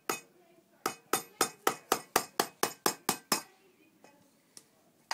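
A hammer striking the end of a flathead screwdriver held against a coconut sitting in a pot, to punch through the shell: one blow at the start, then a quick run of about a dozen sharp blows at roughly four a second that stops a little past halfway.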